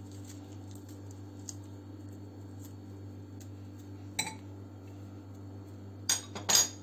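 Metal cutlery clinking against glass bowls: a single clink about four seconds in and two or three quick ones near the end, over a faint low hum.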